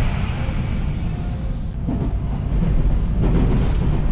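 Tokaido Line electric train running on the rails, a steady low rumble.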